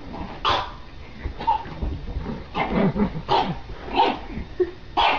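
A dog barking: a run of about seven short, loud barks at uneven intervals.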